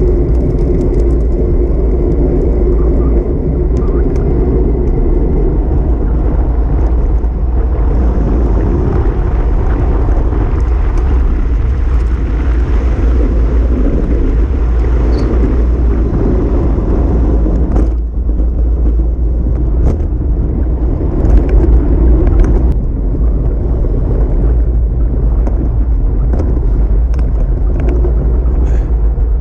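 Steady rumble of a road bike in motion, heard from a handlebar-mounted camera: wind buffeting the microphone together with tyre and road noise, briefly louder about three-quarters of the way through.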